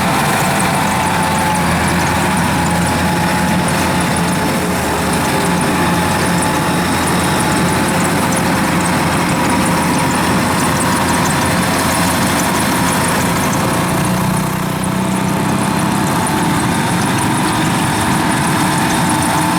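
Heavy farm machinery's diesel engine running steadily at a constant speed.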